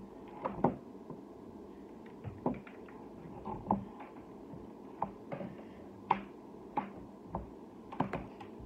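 Irregular light taps and clicks, about a dozen spread over several seconds, over a steady low room hum.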